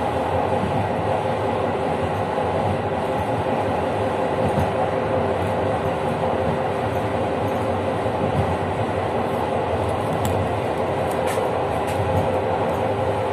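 Passenger train running along the track: a steady rolling noise of wheels on rails, heard from the rear of the last carriage, with a couple of faint ticks about ten seconds in.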